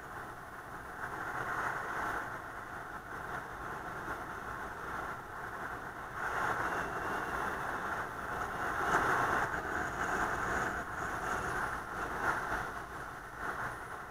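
Wind and road noise from a moving vehicle picked up by a dashcam microphone: a steady rushing that swells and eases, louder through the middle.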